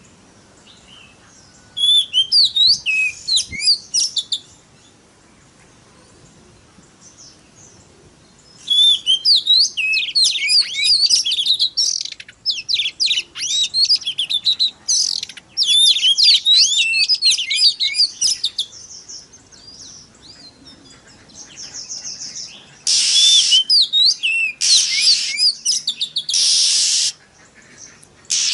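Oriental magpie-robin (kacer) singing in bursts of rapid, varied whistled phrases: a short burst about two seconds in and a long one from about nine to eighteen seconds. Near the end come three loud harsh, rasping notes.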